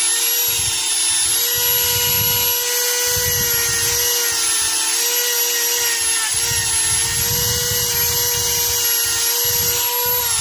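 Dremel rotary tool running at a steady high speed, held against rusty steel pliers to take off rust, with scraping contact that comes and goes. It is switched off at the very end, its pitch falling as it spins down.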